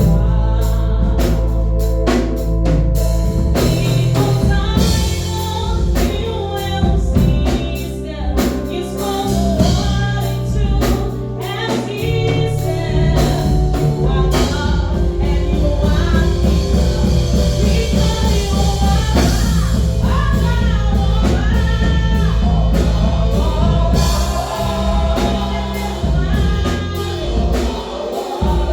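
Gospel choir singing with band accompaniment: a heavy bass line and drums under the voices.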